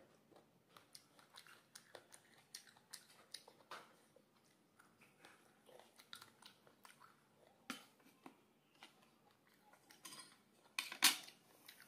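Close-up chewing with small wet mouth clicks while eating fruit, then a metal spoon clinking and scraping against a ceramic plate of poha, the loudest clinks about eleven seconds in.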